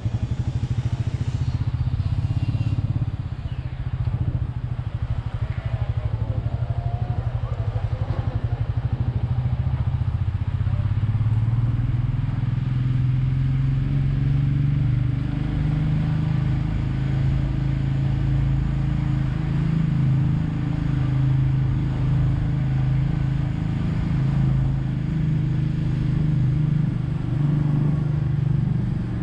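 Royal Enfield Meteor 350's single-cylinder engine running steadily while riding, its pitch stepping up about a third of the way in and then wavering with the throttle, over road and wind noise.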